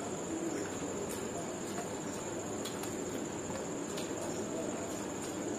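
Close-up chewing of crisp raj kachori, with short crunchy clicks every second or so and wet mouth sounds, over a steady high-pitched whine.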